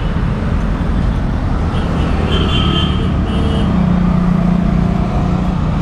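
Road traffic passing close by: a steady wash of engine and tyre noise, with a low engine hum growing stronger past the middle.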